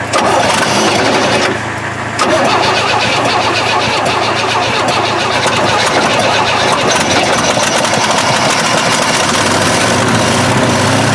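1968 Chevy truck engine, unrun for 15 years, cranking and firing on poured-in gasoline and running roughly, with a massive exhaust leak. It falters briefly about two seconds in, then picks up again and keeps going.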